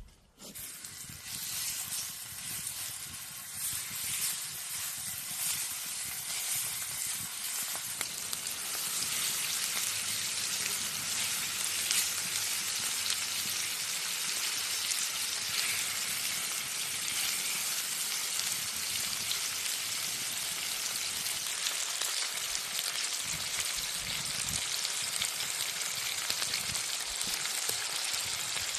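Food frying in a hot pan: a dense, crackling sizzle that builds over the first several seconds and then holds steady.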